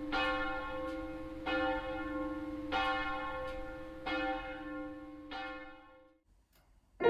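A single church bell tolling, five strikes about every 1.3 seconds, each ringing on under the next. The ringing dies away about a second before the end.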